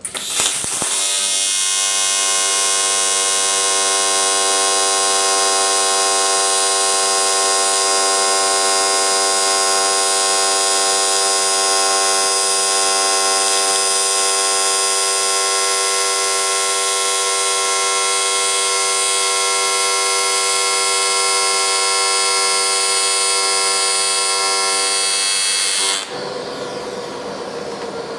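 AC TIG welding arc on aluminum from an HTP Invertig 221 at about 218 amps: a steady, high-pitched electric buzz. It strikes about half a second in and cuts off about 26 seconds in, leaving a softer hiss.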